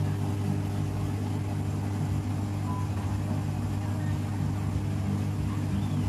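Mademsa 9.5 kg top-loading washing machine at the end of its spin cycle: a steady low motor hum as the drum slows toward a stop.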